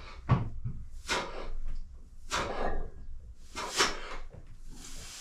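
Four sharp, hissing exhalations, about a second or so apart, from a person straining through bench-press reps with a barbell of about 60 kg.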